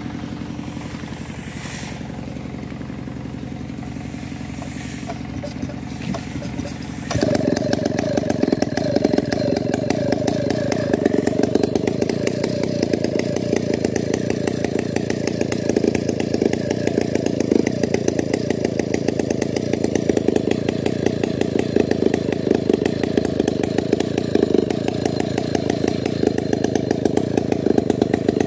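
Stihl 070 two-stroke chainsaw engine running at a steady idle, then about seven seconds in jumping abruptly to a much louder, fast run that holds steady.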